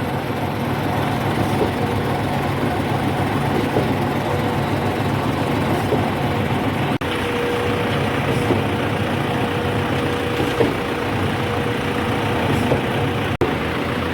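Heavy construction-machinery engine running steadily, joined about halfway through by a steady higher hum.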